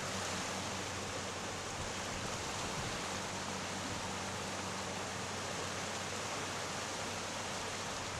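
Water rushing steadily, a constant even hiss with no breaks: storm-surge seawater flowing into Martin Lake.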